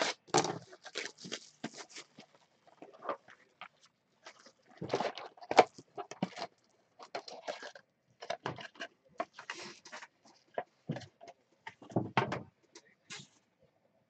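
Cellophane shrink-wrap being peeled off a trading-card hobby box and crumpled, in irregular crackles and rustles, with cardboard and foil card packs handled and a few louder, duller knocks.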